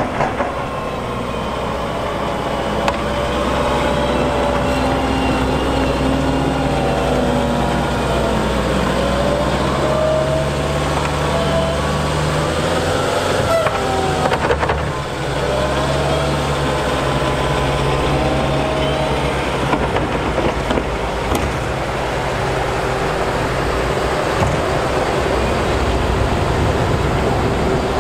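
Volvo wheel loader's diesel engine running steadily under work, its pitch rising and falling again and again.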